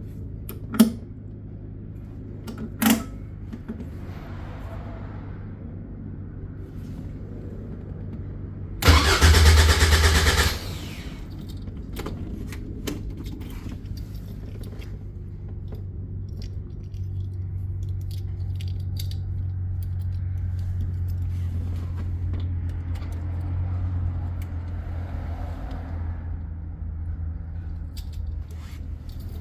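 Caterham 7 620S engine on a cold start, running with a steady low hum. Two sharp clicks come early, there is a loud burst of about a second and a half around nine seconds in, and the hum grows stronger for a while in the second half.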